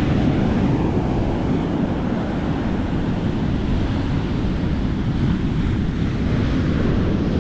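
Wind buffeting the microphone over the steady wash of surf on the beach: a loud, unbroken low rumble.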